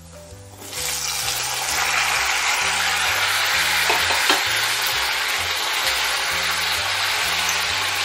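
Chopped tomatoes tipped into hot oil in a steel kadai, which sets off a loud sizzle under a second in. The sizzle then holds steady as the wet tomato pieces fry, with a brief knock near the middle.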